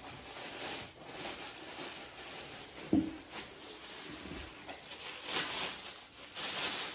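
Packaging being handled: rustling and rubbing of foam and cardboard around the ratchet straps, with a single sharp knock about three seconds in.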